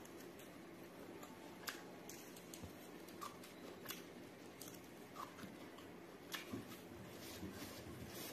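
Faint close-miked chewing and mouth sounds of a person eating tender pork and rice by hand, with scattered soft wet clicks and smacks.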